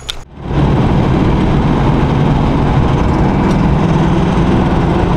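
Vehicle engine and road noise heard from inside the cabin while driving, a loud, steady drone with a low engine hum. It cuts in abruptly about half a second in.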